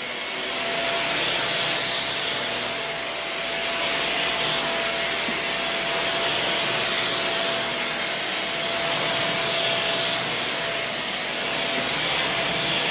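Shark Rocket stick vacuum running steadily with a high whine, its motor level rising and falling a little as it is pushed over the floor.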